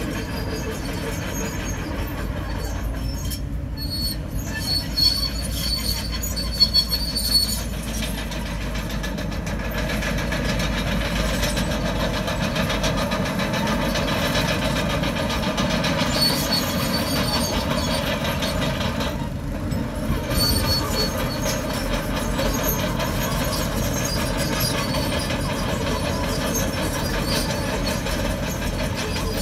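Komatsu bulldozer working, its engine and steel tracks running steadily, with a few sharp knocks about five to seven seconds in.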